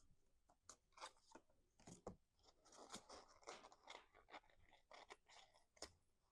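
Faint, irregular crinkling, tapping and scraping of cardstock pieces being handled and pressed together.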